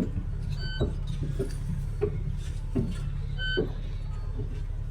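Inside a double-decker bus on the move: a steady low engine drone with scattered rattles and knocks from the bodywork. Two short high beeps sound, under a second in and again about three and a half seconds in.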